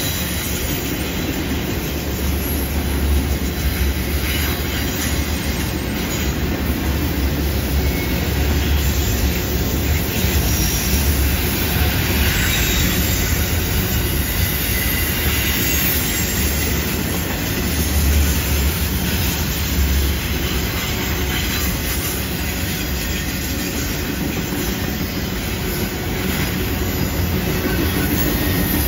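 Freight train of autorack cars rolling past on a curve: a steady rumble of steel wheels on rail, with faint wheel squeal.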